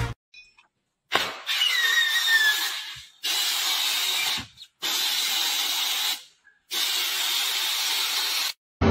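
Compressed-air blow gun hissing in four bursts of a second or two each, stopping briefly between them as the trigger is released. It is blowing loose, peeling film off a car's body panels.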